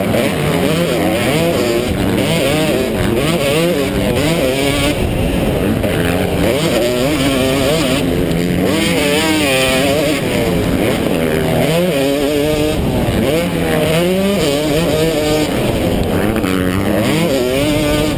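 Motocross bike engine revving hard under race throttle, its pitch climbing and dropping every second or two as the rider accelerates, backs off and shifts gears.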